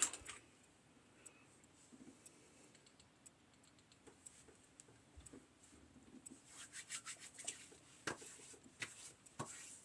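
Faint rubbing of hands on skin while putting on aftershave splash, with a few light clicks and taps, mostly in the second half.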